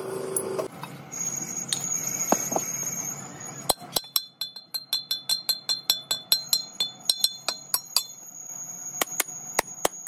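Hand hammer striking a freshly cast iron truck brake drum in quick, even blows, about three a second, each blow ringing like a bell. The blows start about four seconds in, after a few seconds of lighter clattering and scraping.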